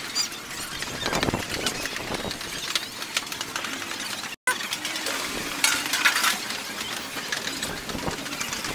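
Busy wet-market ambience: a steady clatter of small knocks and clinks from the stalls over a general din of activity, with a brief complete dropout about halfway through.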